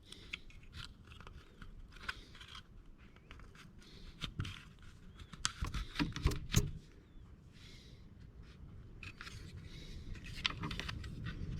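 Vinyl wrap film being handled over a door handle: scattered crinkling, scraping and sharp ticks as it is stretched, pressed and trimmed, with a cluster of louder ticks near the middle. A low wind rumble on the microphone builds near the end.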